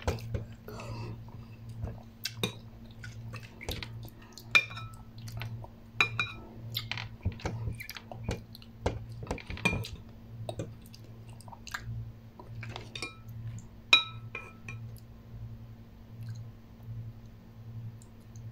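Metal spoon clinking and scraping against a ceramic bowl at irregular intervals while someone eats instant noodles, with chewing between the clinks. A steady low hum runs underneath.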